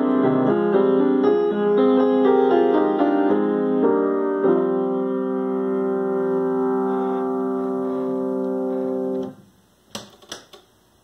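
Grand piano played with a run of changing notes, then a closing chord held for about five seconds that is cut off suddenly when the keys are released. After it comes near silence with a few faint clicks.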